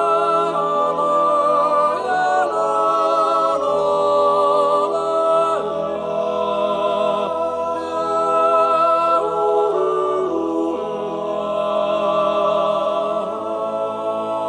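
Vocal music sung a cappella: voices singing long held notes without instruments.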